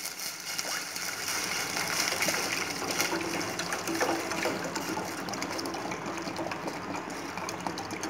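Water pouring steadily from a plastic bottle into a hot steel bowl of garlic sautéed in olive oil, splashing and filling the bowl.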